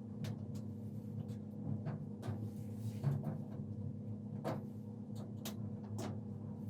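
Small, irregular clicks and ticks of a small flathead screwdriver prying plastic protective caps off the grille screws, over a steady low hum.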